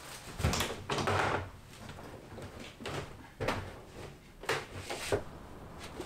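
A handful of irregular light knocks and rustles from household handling, as damp laundry is lifted out of a top-loading washing machine, with one longer rustle about a second in.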